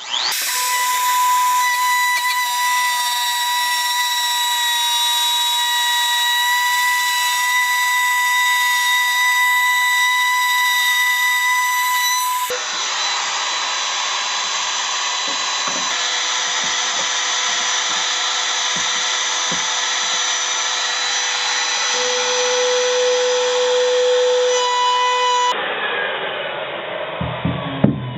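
Electric wood router running at full speed, cutting notches into plywood, a steady high-pitched whine over the cutting noise. The sound jumps abruptly twice as separate passes are cut together, and near the end the motor winds down in falling pitch.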